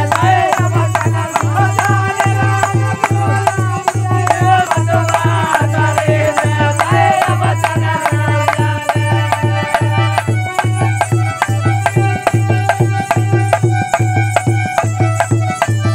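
Indian folk devotional singing by a group of men, accompanied by a dholak drum beating a steady rhythm and sharp clicking hand percussion. The voices drop out about halfway, leaving the drum and percussion playing on.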